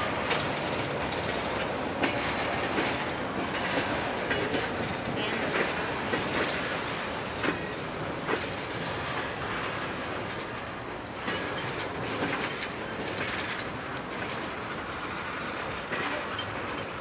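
Freight train's tank cars rolling past: a steady rumble of steel wheels on rail with irregular clicks and knocks, a little quieter in the second half as the last cars go by.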